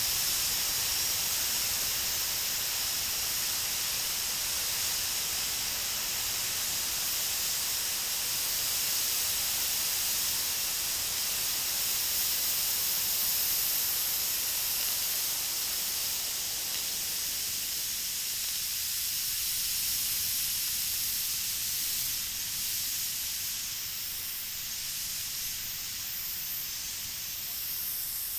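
Pressure cooker venting steam in a continuous high hiss, thinning slightly in the lower part of the sound after about 18 seconds.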